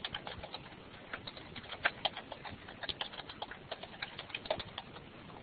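Typing on a computer keyboard: a run of quick, irregular key clicks, several a second.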